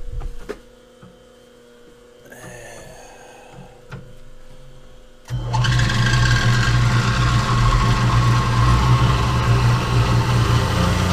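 A few light clicks of handling. About five seconds in, a milling machine's motor is switched on and starts suddenly, then runs with a steady low hum, ready to drill with a number 7 bit.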